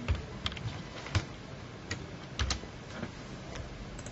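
Typing on a computer keyboard: irregular single key clicks with short pauses between them.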